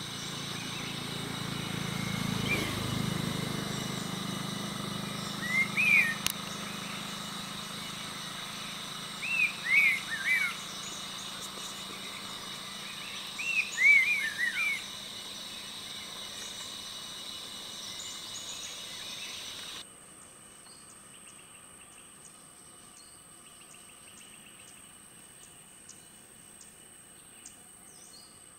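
Forest ambience: a bird calls in three short bouts of quick, downward-sweeping notes over a steady high insect drone. About two-thirds of the way through the sound drops suddenly, leaving faint insect chirping.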